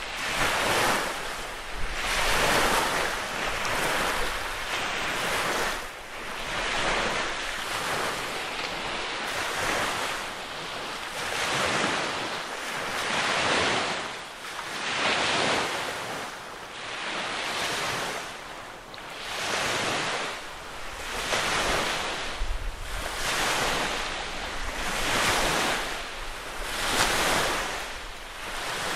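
Small lake waves washing onto the shore in a steady rhythm, one wash about every one and a half to two seconds.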